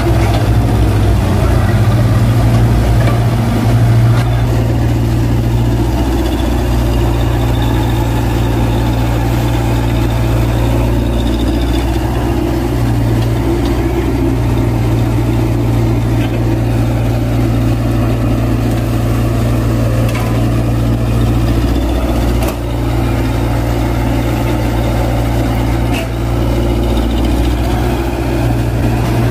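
Kobelco SK200 hydraulic excavator's diesel engine running steadily as it digs wet mud.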